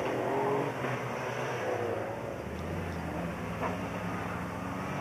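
Off-road 4x4 race cars' engines running on the track, a low drone with the pitch shifting up and down, growing louder about halfway through.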